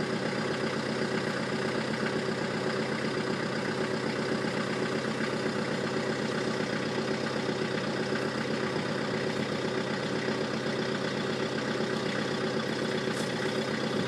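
A motor vehicle's engine idling steadily, with an even hum that does not change.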